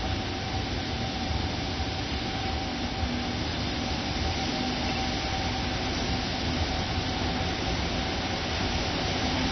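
Container freight train hauled by a JR Freight EF510 electric locomotive approaching. It makes a steady rumbling noise with a faint steady hum, slowly growing louder.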